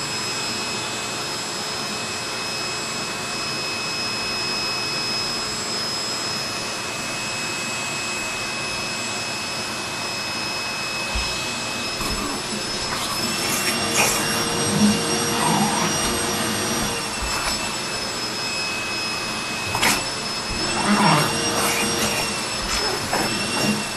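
Vacuum cleaner running steadily with a high motor whine. In the second half its pitch shifts and there are several knocks and bumps as a boxer dog snaps at the nozzle.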